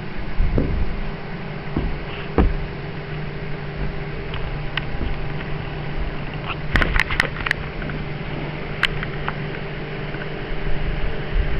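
Steady low mechanical hum, with a few scattered knocks and a quick run of sharp clicks about seven seconds in.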